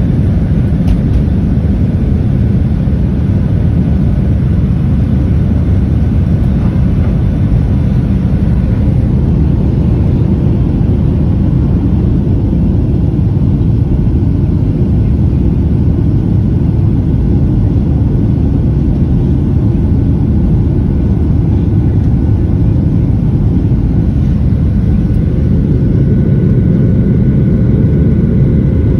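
Cabin noise of a Boeing 737-700 climbing out after takeoff, its CFM56-7B jet engines at takeoff power heard from a window seat behind the wing: a loud, steady, low rumble with faint steady tones above it.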